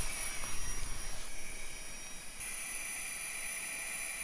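Flextailgear Tiny Pump X battery-powered mini air pump running steadily, blowing air into a Sea to Summit sleeping mat through its valve, with a high, steady whine over a rush of air. The mat is nearly full. The tone shifts slightly about two and a half seconds in.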